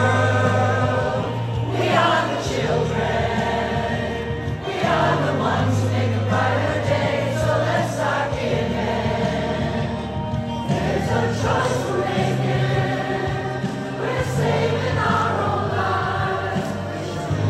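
A women's a cappella chorus joined by members of the public, singing a song together as a large group.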